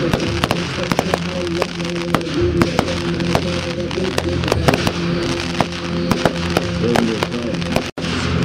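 Fireworks going off in quick succession, many sharp bangs and crackles, over the music of a pyromusical show. The sound cuts out for an instant near the end.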